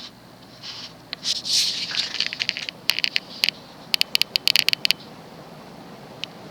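Ceiling fan spinning up to high speed, with a brief rush of air followed by a quick run of sharp clicks and light rattles.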